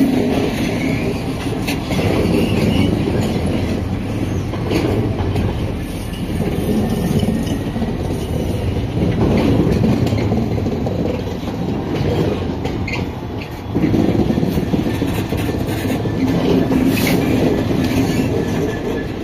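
Railhead treatment train's tank wagons rolling past with a clickety-clack of wheels over the rail joints, then its rear Class 66 diesel locomotive passing close. The train gets louder about two-thirds of the way through as the locomotive comes by.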